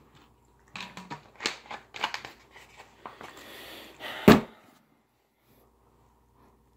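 Close handling noise of a bottle: a run of clicks and rustles with a short hiss in the middle, ending in one loud thump a little past four seconds in.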